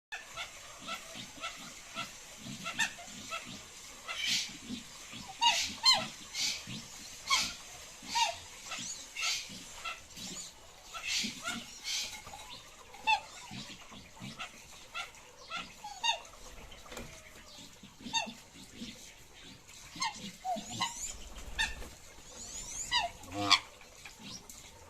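Mandarin ducks calling: a run of short, sharp calls repeated at irregular intervals, with a few gliding whistled calls near the end.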